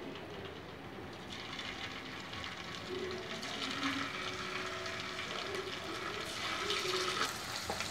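Hot oil sizzling in a pan as paneer cubes are dropped in one by one. The sizzle grows louder and thicker from about a second and a half in, as more pieces go into the oil.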